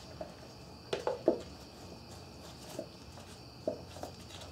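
Plastic timing-belt cover knocking and clicking against a Subaru 2.5L boxer engine as it is pressed into place by hand: a quick cluster of three knocks about a second in, the loudest, then a few single taps.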